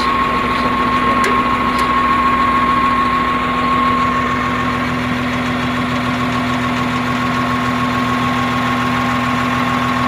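Caterpillar 950H wheel loader's six-cylinder diesel engine idling steadily with a whine over the low running sound. The engine is misfiring, and an injector fault code points to a faulty injector.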